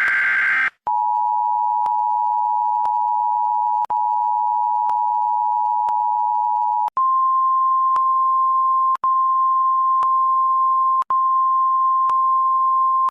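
Emergency Alert System tones. A short raspy data burst ends, then the two-tone attention signal sounds steadily for about six seconds. About seven seconds in it switches to a single slightly higher steady tone, the weather-radio alert tone. Faint clicks come about once a second throughout.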